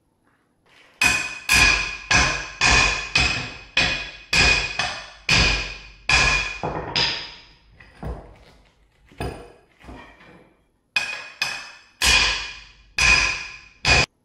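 Hammer blows on metal, about two a second in a steady rhythm, each strike ringing briefly. The blows grow lighter around the middle and land hard again near the end.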